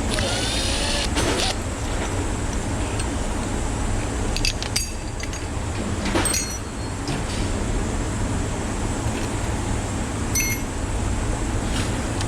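Steady low rumble with a few light metallic clinks of tools or engine parts being handled, about five, six and ten and a half seconds in, during an engine teardown.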